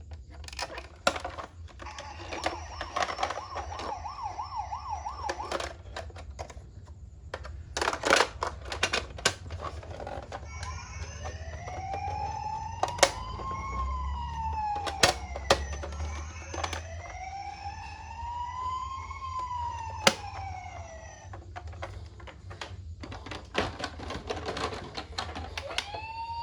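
Toy ambulance minicar's electronic siren: a quick warble about two seconds in, then two slow rising-and-falling wails in the middle, over scattered clicking and clattering.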